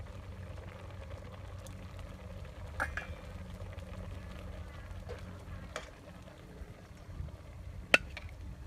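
Metal utensils clinking against a stainless steel cooking pot and a ceramic bowl while stew is stirred and ladled out. A few sharp clinks, the loudest just before the end, sound over a steady low rumble.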